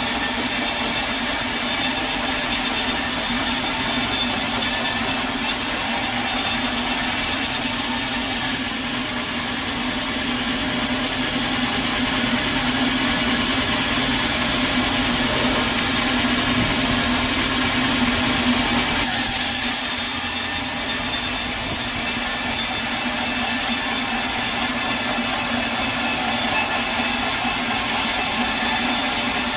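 Sawmill saw cutting through a log, a steady continuous drone with a hiss of cutting over it. The higher hiss drops out for about ten seconds in the middle, then comes back.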